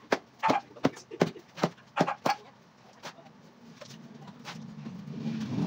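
Sharp taps of a steel trowel on concrete hollow blocks as they are set in mortar, about two to three a second, thinning out after about two and a half seconds. A low drone swells near the end.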